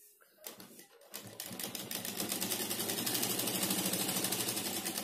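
Domestic sewing machine stitching through cloth: a few faint clicks, then the machine starts up about a second in and settles into a steady, fast stitching rhythm.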